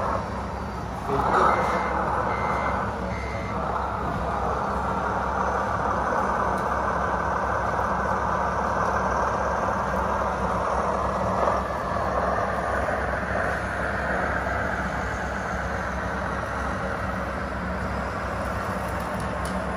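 Radio-controlled scale truck running steadily, with three short reversing beeps about a second and a half in.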